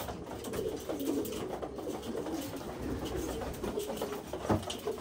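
Racing pigeons cooing, a low steady murmur of calls, with a couple of light knocks near the end.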